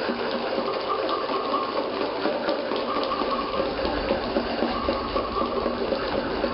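Live music from a children's school music group on stage: held notes over a steady wash of noise, with a few faint taps.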